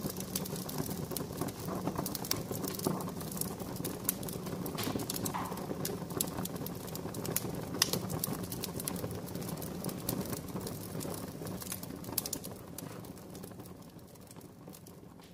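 Campfire crackling: irregular pops and snaps over a low steady rumble, fading out over the last few seconds.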